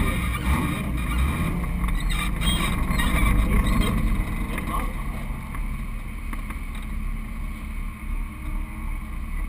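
Car engine running low with wind buffeting the hood-mounted camera's microphone, briefly louder about three to four seconds in as the car rolls forward to the start line.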